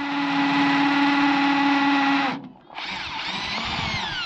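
Power drill drilling a hole in masonry for a wall plug, in two runs: a steady whine for about two seconds that cuts off, then after a short pause a second run whose pitch falls as it winds down near the end.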